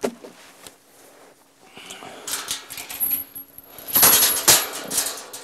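Handling noise as a person walks carrying the camera: irregular rustling and scuffing from a padded jacket and hood near the microphone, starting about two seconds in and loudest around four seconds.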